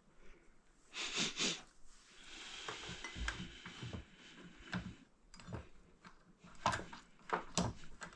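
Scattered light clicks and metal clinks from handling small metal parts and tools, with a soft rustle about two seconds in.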